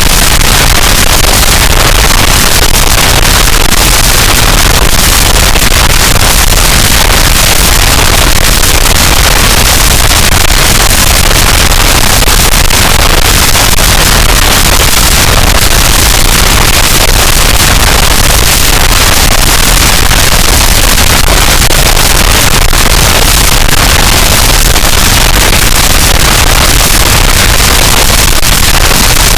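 Harsh noise wall: a loud, unchanging wall of distorted noise, heaviest in the deep bass and the hiss at the top, with no pitch, rhythm or breaks.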